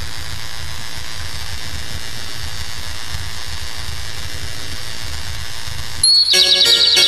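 Steady buzzing background noise with a fluttering low rumble, as picked up by a phone's microphone before a karaoke song. About six seconds in, the backing track starts with bright plucked-string notes.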